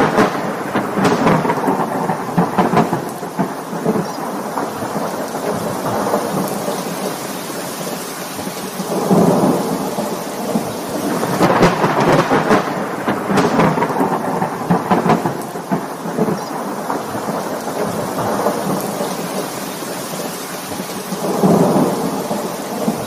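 Thunderstorm: steady heavy rain with several rolls of thunder, crackling and rumbling, the strongest about a second in, around nine seconds, from about eleven to fifteen seconds, and near the end.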